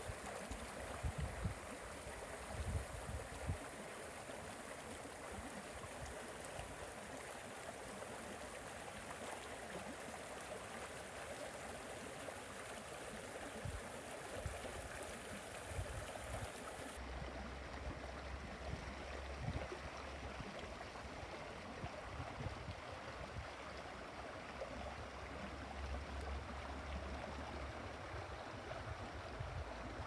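Shallow, rocky creek flowing and trickling over stones in a steady rush of water, with occasional low rumbles.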